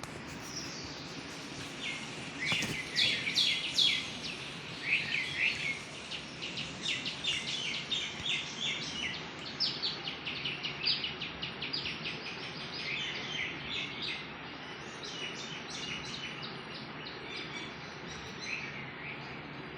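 Birds chirping in a forest: quick strings of short, high chirps from several birds, busiest and loudest in the first few seconds, over a steady background hiss.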